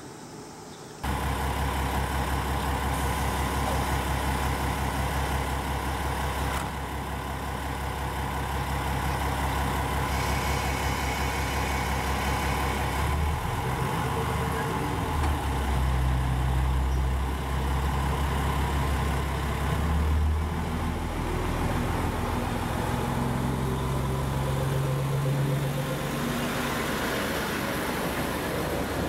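Diesel engines of a KiHa 47 railcar set idling at the platform, starting about a second in. From about halfway they rev up in stages as the train pulls away.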